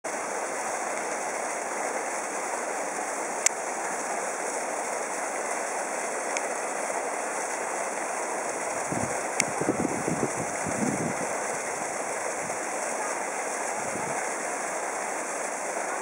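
Water running under the ice of a frozen waterfall and spilling into an open pool: a steady rushing. A few sharp clicks are scattered through it, and some low rumbling comes in about nine to eleven seconds in.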